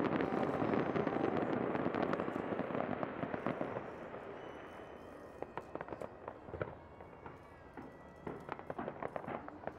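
Aerial fireworks display: a dense barrage of overlapping bursts that dies away over the first four seconds or so, then scattered sharp pops and crackles.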